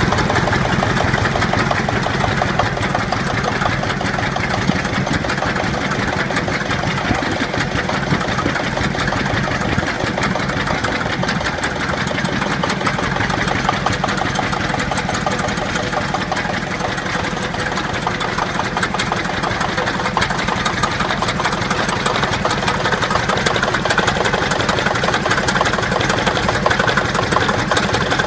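Witte single-cylinder diesel stationary engine running steadily with a rapid, even knocking beat.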